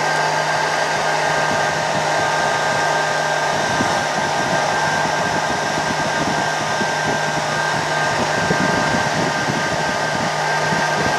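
3D printer part-cooling fans running steadily, blowing air through the cooling ducts: an even rush of air with a low hum and a higher whine.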